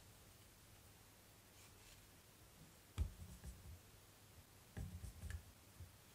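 Near silence with a few faint, soft knocks, one about three seconds in and a short run near five seconds, as a watercolour brush is worked on paper and in a plastic mixing palette.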